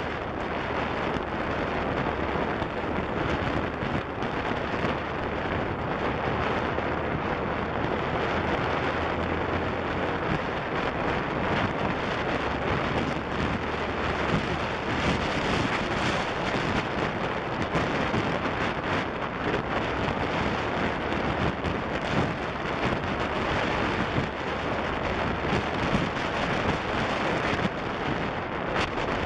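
Loud, steady wind buffeting on the microphone of a moving motorcycle, with the bike's engine running faintly underneath.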